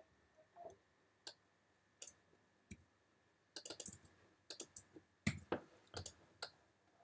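Faint, irregular keystrokes and clicks on a computer keyboard and mouse while a line of code is typed: single taps with pauses between, and quicker clusters of taps from about three and a half seconds in.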